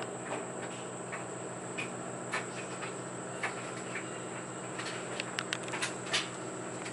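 Scattered light clicks and taps, several in quick succession near the end, over a steady low hum.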